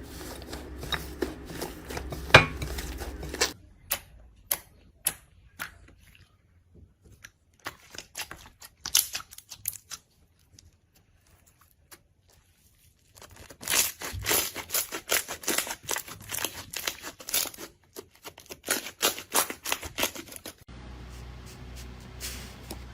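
Slime being pressed and worked by hand, giving quick runs of crackling, popping clicks in irregular bursts, with a lull of a few seconds in the middle.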